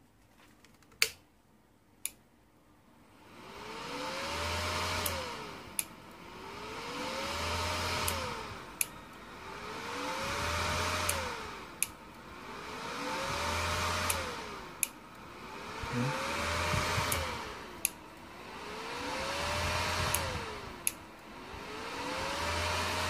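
Izumi MAX 120 inverter welder cycling on and off about every three seconds. Each time a sharp click is followed by a whir and hum that rise and fall back, like the cooling fan spinning up and winding down, and this repeats over and over. This is the welder's fault symptom, which the repairer takes for a short, most likely a burnt output diode or the NTC.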